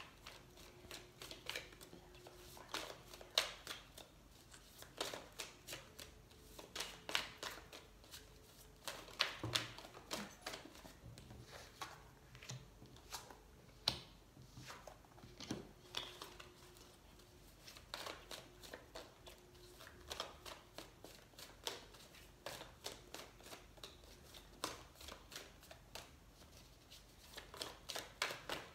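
A deck of oracle cards being shuffled by hand, with a dense, irregular run of sharp card snaps and clicks, and cards laid down one at a time onto a cloth.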